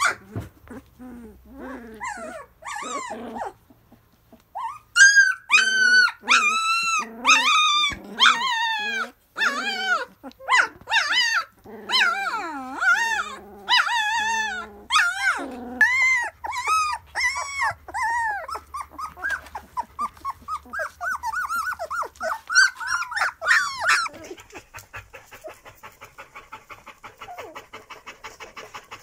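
Dutch Shepherd puppies whining, yelping and growling at play, many short rising-and-falling cries in quick succession. About five seconds before the end the cries stop and give way to fast, rhythmic panting.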